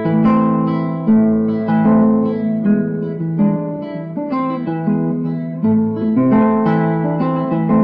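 Solo acoustic guitar playing a milonga: plucked bass notes under picked chords, an instrumental passage between recited verses.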